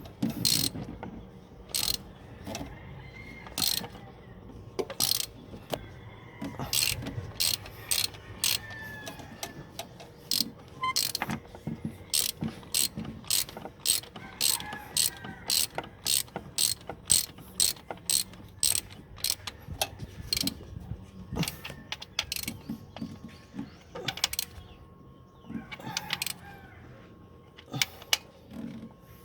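Hand ratchet wrench clicking in irregular runs of sharp clicks with short pauses, as bolts on the engine are run down by hand.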